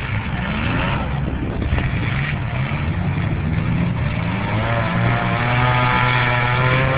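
Compact demolition-derby cars' engines running together in a steady low drone. About halfway in, a higher-pitched tone rises slowly over it.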